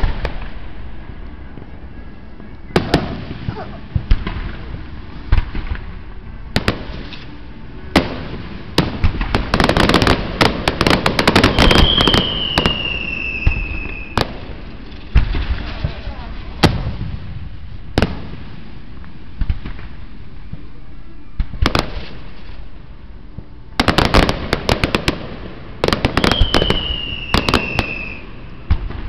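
Aerial fireworks display: sharp bangs of shells bursting overhead, with dense runs of rapid crackling pops about ten seconds in and again near the end. Twice a thin whistle slides slightly down in pitch for about two seconds.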